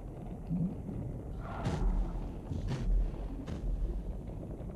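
Lava pouring onto the seafloor, heard underwater: a steady low rumble with several sharp cracks and thuds in the middle of the stretch, the sound of molten rock quenching and breaking up in seawater.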